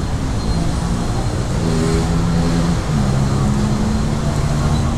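Road traffic noise with a vehicle engine running close by, its pitch shifting about three seconds in.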